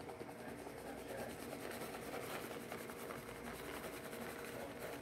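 Plastic bag of shredded cheese crinkling and rustling as it is shaken and squeezed over a pan, faint scratchy rubbing.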